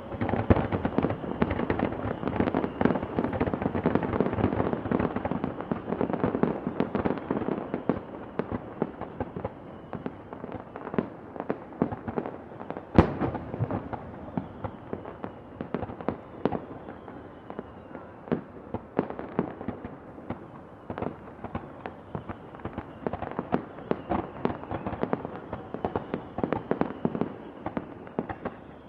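A barrage of fireworks going off: many overlapping bangs and pops, densest and loudest over the first ten seconds, then sparser, with one sharp bang standing out about halfway through. Faint falling whistles come through now and then.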